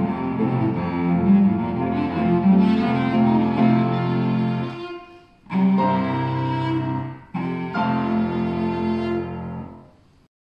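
Solo cello played with the bow, a melody that breaks off twice, about halfway and a couple of seconds later, before the last note dies away near the end.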